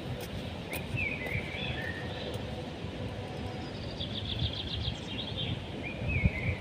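Birds chirping: a few short, pitch-bending chirps about a second in and again near the end, and a quick run of repeated notes in the middle, over steady low outdoor background noise.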